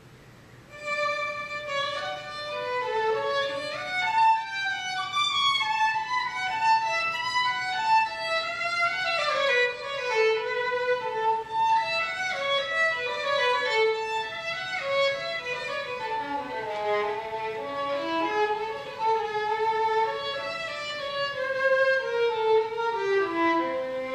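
Solo violin, unaccompanied, playing a quick, continuous run of notes that starts about a second in after a short pause.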